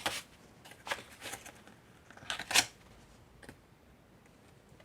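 Pages of a handmade paper journal being turned and handled: several short papery rustles and brushes, the loudest about halfway through.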